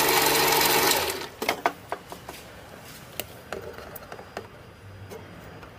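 Sieg C2 mini lathe running with a steady mechanical whir, switched off about a second in. Then a series of light metallic clicks as a thread pitch gauge is fitted against the freshly cut thread on the brass part.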